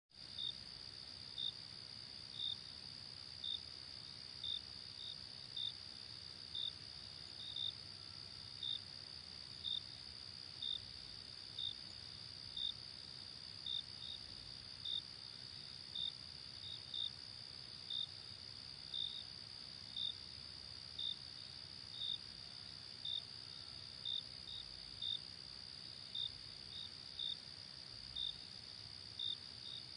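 Night insect chorus: a steady high-pitched trill with a separate, louder short chirp repeating about once a second, over a faint low rumble.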